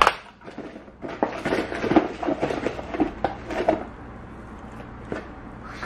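A sharp knock at the start, then about three seconds of irregular clicking and rustling as fries are handled and eaten.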